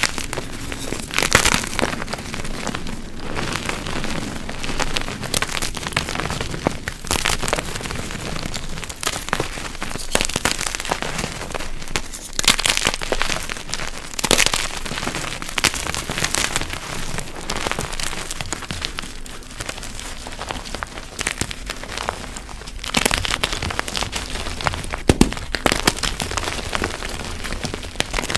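Deep-dyed gym chalk blocks being crushed: a steady, dense crunching and crackling of crumbling chalk, with a louder crunch every few seconds.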